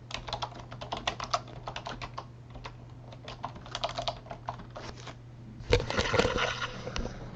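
Typing on a computer keyboard: irregular runs of quick key clicks as names are entered, then a louder cluster of clicks and knocks about six seconds in, over a faint steady low hum.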